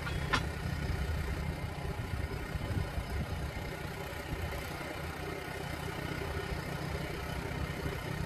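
An engine idling steadily, with one sharp click about a third of a second in.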